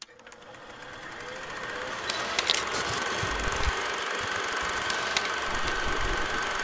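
A steady mechanical buzz that fades in over the first two seconds, with a few sharp clicks.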